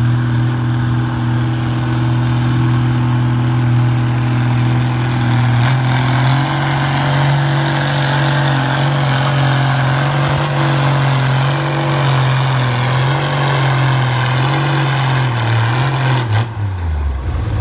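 Oliver tractor engine pulling a weight-transfer sled under load. Its note holds steady at first, then rises slightly and wavers as the load builds, and falls off near the end as the throttle comes back.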